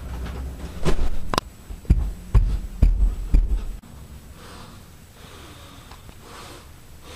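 A wooden door being opened and handled, with knocks and thumps about every half second for the first few seconds as someone walks out. Then a few soft, huffing breaths through the nose.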